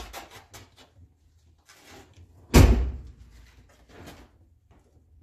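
Knocks and clatter of hand work on the engine's oil filter under a truck, with a quick run of clicks at the start and one loud bang about two and a half seconds in.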